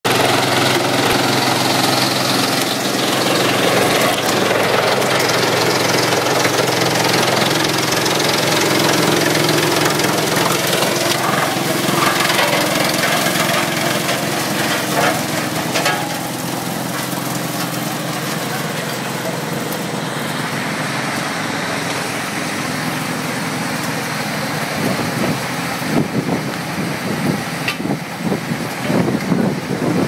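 GX2113 drum wood chipper running and chipping branches fed in on its conveyor: a steady machine hum under a dense noise of wood being cut into chips. It is louder over the first half and turns uneven and crackly near the end.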